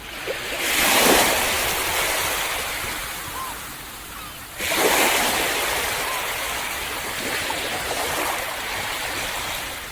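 Ocean waves breaking on the shore: two waves crash about four seconds apart, each followed by a long, slowly fading wash of surf.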